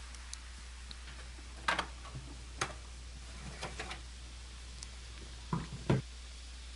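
A handful of short, scattered clicks and light knocks from cables and plastic clips being handled inside a desktop computer case as wiring is pulled free.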